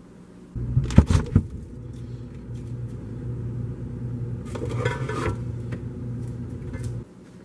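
Steady low hum of an open refrigerator, with sharp clicks and rattles about a second in and rustling and clattering of items on the fridge shelves about halfway through. The hum cuts off suddenly near the end.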